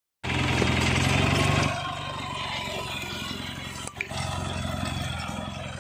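Captain mini tractor's engine running steadily under load while pulling a mouldboard plough through the soil. It is loudest for the first second and a half, then softer, with a brief click and dropout about four seconds in.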